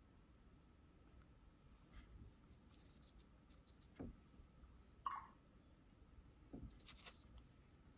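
Near silence: quiet room tone with a few faint clicks and light scratchy sounds.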